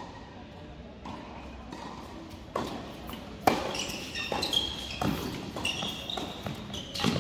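Tennis balls struck by rackets and bouncing on an indoor hard court in a doubles rally, starting about two and a half seconds in, with sharp hits about every second. Tennis shoes squeak on the court surface during the rally.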